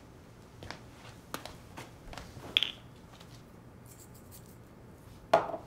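A few scattered light clicks and taps of something being handled, one with a brief high squeak, then a louder knock near the end.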